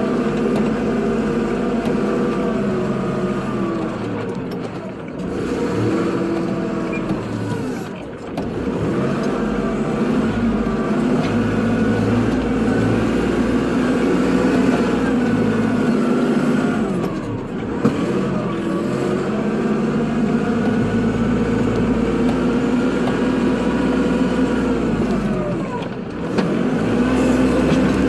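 Kubota tractor's diesel engine running under plowing load. Its pitch sags and recovers about four times.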